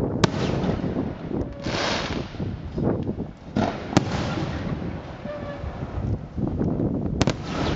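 Aerial firework shells bursting overhead: three sharp bangs, one just after the start, one about four seconds in and one near the end, with spells of hissing from the burning stars and a steady low rumble underneath.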